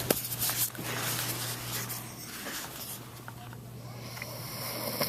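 A sleeping dog snoring, with some rustling and handling noise in the first second.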